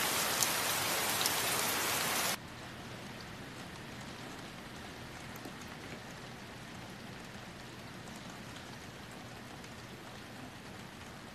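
Steady rain falling, loud at first, then dropping suddenly about two seconds in to a softer, even patter that carries on.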